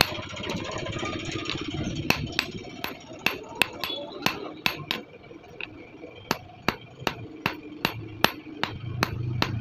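Hand hammer striking red-hot steel on an anvil: a steady run of sharp metallic blows, about two to three a second, with a brief pause about five seconds in.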